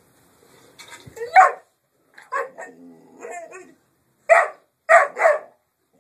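English Mastiff puppies squabbling over a bone. There is a loud bark about a second and a half in, then a longer, lower growling stretch, then three short, sharp barks near the end.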